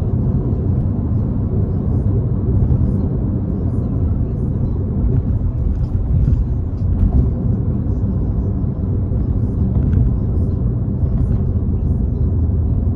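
Volkswagen Jetta driving at a steady cruise: a continuous low engine and road rumble with no clear rise or fall in pitch.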